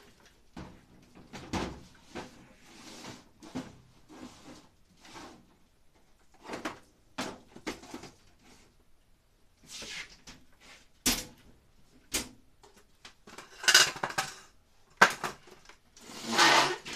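Rummaging and handling: irregular knocks, clunks and rustles of wooden beams and stored items being shifted on a workbench. The sharpest knocks come in the second half, with a longer scrape near the end.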